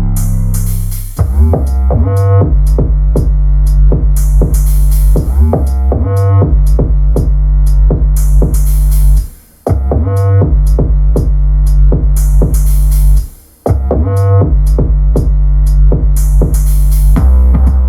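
Electronic music with heavy sustained bass and a steady ticking hi-hat beat, played loud through a Klipsch Cinema 400 2.1 soundbar and its subwoofer. The music drops out briefly twice, about halfway through and again a few seconds later.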